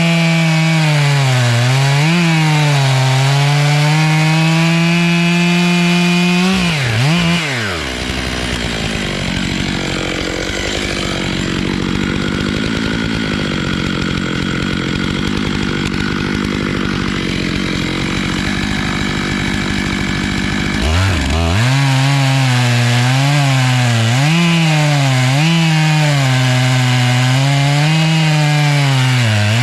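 Stihl MS 881 two-stroke chainsaw running at high throttle on a 36-inch bar in an Alaskan chainsaw mill, cutting through black walnut, its pitch wavering under the load of the cut. About seven seconds in the sound changes to a rougher, steadier noise for some thirteen seconds before the wavering engine note returns.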